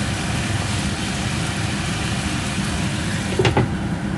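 Pork sizzling steadily in hot oil in a pan on a gas stove, under a constant low rumble. About three and a half seconds in, a glass pot lid clacks into place on the pan.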